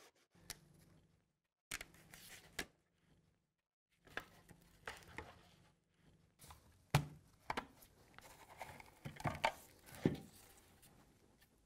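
Cured epoxy mould being prised off a 3D-printed plastic pattern: scattered light clicks, knocks and crackles of hard parts separating and being handled, the sharpest about 7 and 10 seconds in.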